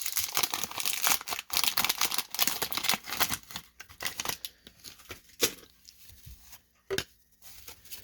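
Wax wrapper of a 1991 Topps baseball card pack being torn open and crinkled: dense crackling for the first three and a half seconds, then a few scattered sharp crackles.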